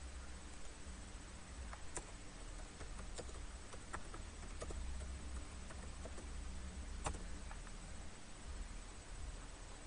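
Faint steady low hum with a few light clicks scattered through it, the sharpest about two seconds and seven seconds in.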